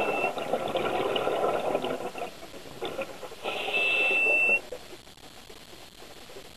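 A muffled rumbling noise, then a high, steady electronic beep about a second long starting about three and a half seconds in, with a brief shorter beep at the very start.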